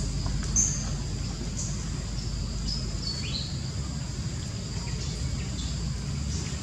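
Outdoor ambience: a steady high insect drone over a low rumble, with a few short bird chirps, one rising about three seconds in.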